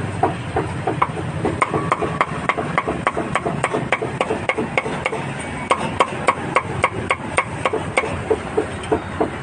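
A cleaver chopping meat on a chopping block: a steady run of sharp chops, about three a second, over low market background noise.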